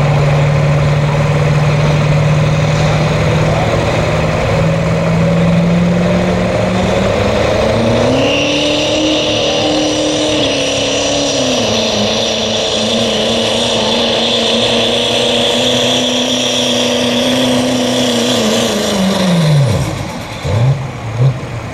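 Duramax V8 turbodiesel in a 2.6-class pulling pickup under full load: its note holds steady, climbs about seven seconds in and holds high with a high whistle over it. Near the end the engine note drops away sharply, followed by two quick revs.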